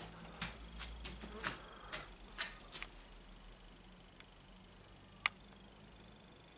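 A quick run of faint, irregular clicks and taps over the first three seconds, then a single sharper click about five seconds in.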